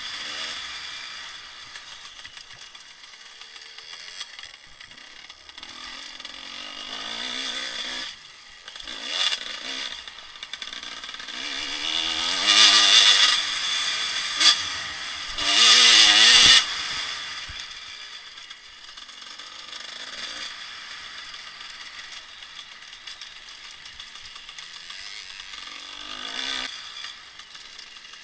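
Dirt bike engine heard from a helmet-mounted camera while riding a dirt track, its revs rising and falling with the throttle. It is loudest in two hard bursts of throttle about twelve and sixteen seconds in, with a short sharp knock between them.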